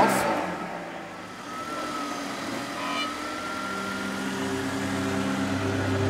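Race car engine running, with a faint whine rising slowly in pitch; a low steady hum builds up in the second half.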